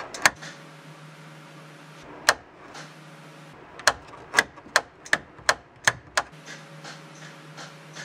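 Headlight push switch on a 1995 Jeep Wrangler YJ's dash being pressed on and off repeatedly, about ten sharp clicks that come quicker between about four and six seconds in. The newly fitted switch is being tested.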